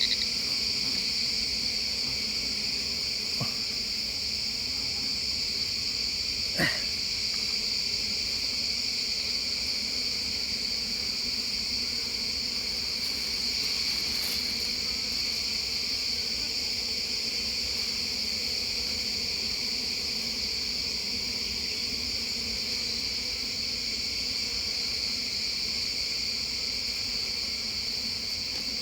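Steady chorus of forest insects, a continuous high-pitched trilling drone that holds unchanged throughout, with one short knock about six and a half seconds in.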